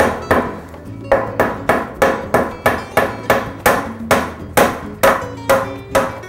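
Hammer driving nails through wire mesh into a wooden frame rail: steady repeated blows about three a second, with a brief pause about a second in.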